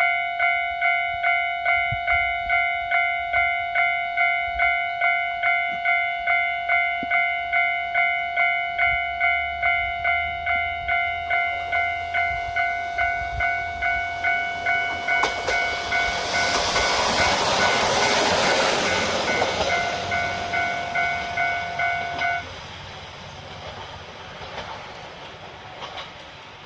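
Japanese level-crossing electronic warning bell ringing in an even repeating ding, a little under two a second. An Akechi Railway diesel railcar runs over the crossing, rising to a loud rumble in the second half. The bell cuts off just after the train has passed.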